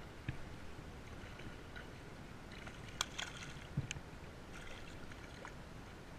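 Faint splashing and sloshing of water as a small hooked fish thrashes at the surface while being reeled in, with a few sharp clicks about three to four seconds in.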